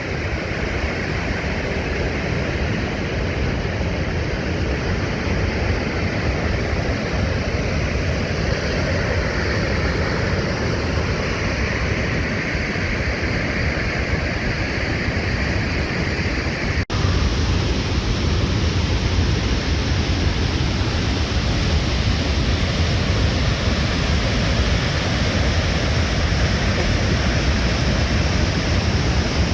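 Steady rushing roar of the Krimml Waterfalls: an even wash of falling water. About 17 seconds in it cuts out for an instant and comes back slightly louder.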